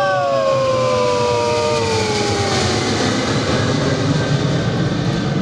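Military jet aircraft flying past: a loud, steady jet roar that swells to its peak about two and a half seconds in, with whining engine tones sliding slowly down in pitch as the aircraft go by.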